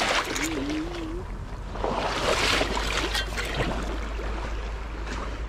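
Water splashing and sloshing around the legs of someone wading a shallow stream, in two louder surges, over the stream's steady flow.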